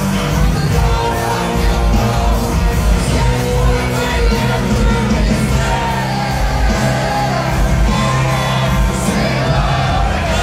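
Live rock band playing electric guitars, bass and drums, with a male lead vocal wailing over the top, recorded from the audience with the echo of a large hall.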